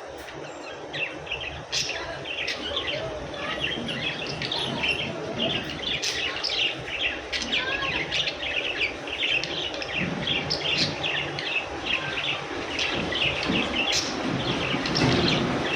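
Budgies chirping and chattering, a dense, continuous run of short high chirps.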